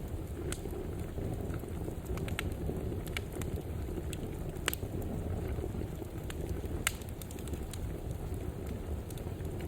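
Wood fire burning in a fireplace: a steady low rumble of flames with scattered sharp crackles and pops, the loudest about halfway through and again about two-thirds of the way in.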